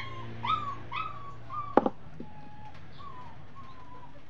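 A dog whimpering in a run of short, high whines, about five in quick succession. Then comes a single sharp click, the loudest sound, and after it a few fainter whines.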